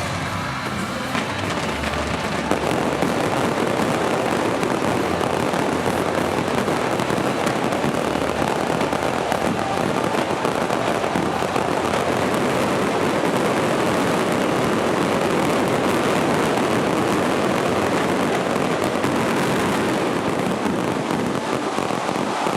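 Aerial fireworks going off in a dense, nearly unbroken run of overlapping bangs and crackles.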